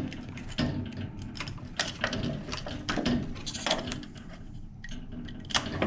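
Irregular small clicks and taps as wire spade connectors are handled and pushed onto the terminals of a fireplace control board.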